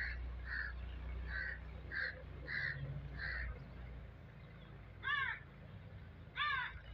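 A bird calling: a run of six short calls, a little over one a second, then after a pause two harsher, rougher calls near the end, over a low rumble.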